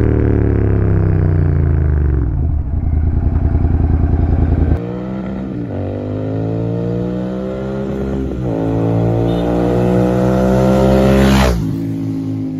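Royal Enfield Continental GT 650's 648 cc parallel-twin with an AEW 102 exhaust, ridden. The engine note falls and throbs at low revs, then rises twice with a gear change in between, and drops off as the throttle closes near the end.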